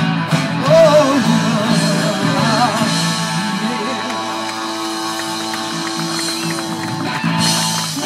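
Live rock band with electric guitar and a singer, heard from the audience lawn through a phone microphone. A long held note in the middle breaks off about a second before the end, and the band carries on.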